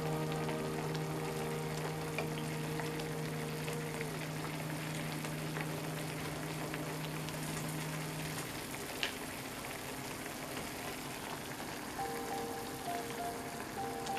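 Chicken and onion simmering in soy-and-dashi broth in a small pan: a steady crackle of bubbling, with a sharp tick about nine seconds in. Soft background music with long held notes plays over it.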